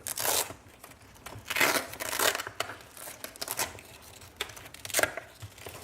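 Rustling and crinkling of packaging being handled, in several short bursts.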